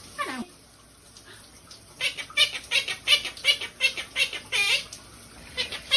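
Parrot vocalising: one falling whistle-like call, then about two seconds in a fast run of short chirping squawks, several a second, for about three seconds.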